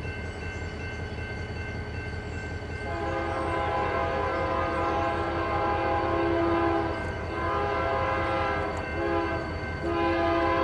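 Diesel locomotive running with a low steady rumble. About three seconds in, its multi-chime air horn sounds a chord in two long blasts, a short one and another long one, the long-long-short-long grade-crossing signal.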